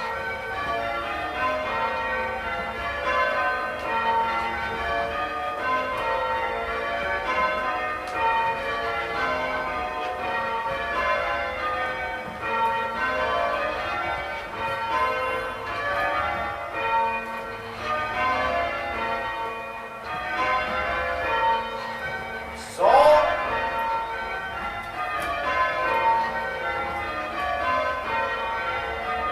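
Full-circle English tower bells being change rung in a doubles method, the strokes following each other in a rapid, unbroken stream. About two-thirds of the way through, a short, loud vocal call rings out over the bells.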